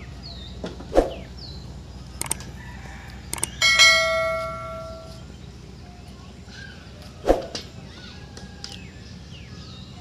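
Subscribe-button animation sound effect: a few sharp clicks, then a bell ding that rings out and fades over about a second and a half. Two loud thuds on wooden boards come about a second in and again about seven seconds in, and birds chirp faintly.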